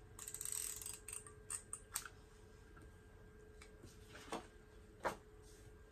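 Paper being handled: a brief scratchy rustle at the start, then scattered light clicks and taps. The sharpest click comes about five seconds in.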